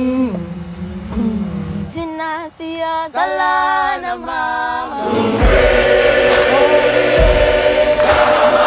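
A single voice sings a gwijo, a South African rugby chant. About five seconds in a large choir of many voices joins, over deep thuds.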